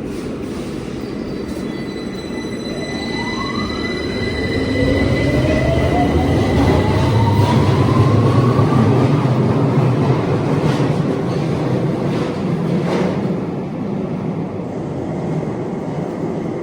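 London Underground 2009 Stock train departing a station: its electric traction whine rises steadily in pitch as it accelerates, over the rumble of the train. The sound swells and then eases, with two sharp clicks later on.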